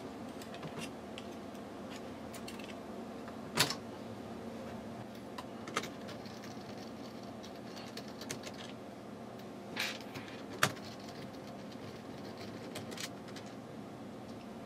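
Small screwdriver clicking and tapping against the screws and plastic-and-metal parts of an inkjet printer's printhead assembly: a sharp click a few seconds in and two close together about ten seconds in, with fainter ticks between. A steady low hum runs underneath.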